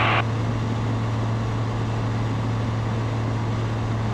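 The 100-hp Rotax 912ULS four-cylinder engine and propeller of a Zenith STOL CH701 light airplane running steadily at climb power just after takeoff, heard inside the open-view cabin as an even drone with a constant low hum.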